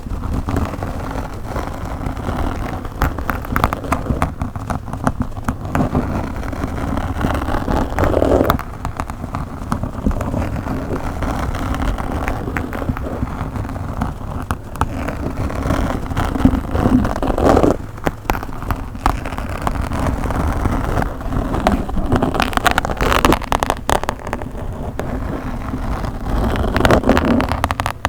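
Scratching and rubbing directly on a microphone: a continuous dense crackle with many small pops and a low rumble, swelling louder several times.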